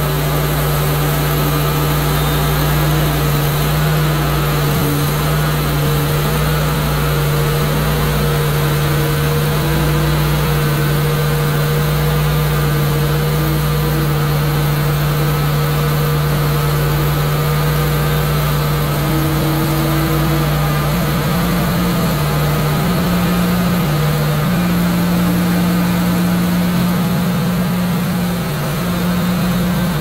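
Wood-Mizer LX150 portable band sawmill running: its gasoline engine and band blade give a loud, steady hum as the saw head is worked along the log. The engine's pitch rises slightly now and then in the last several seconds.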